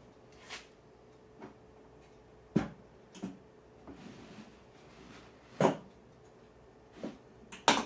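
Sharp wooden knocks and clatters, about eight of them a second or so apart, two louder than the rest, from wood pieces and the plywood crosscut sled being handled and set down on the table saw's wooden top.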